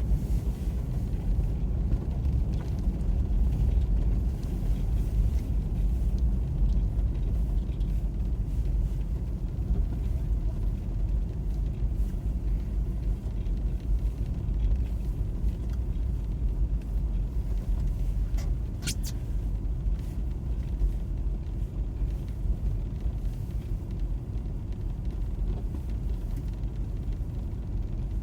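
Steady low rumble of a car heard from inside the cabin, with a single sharp click about two-thirds of the way through.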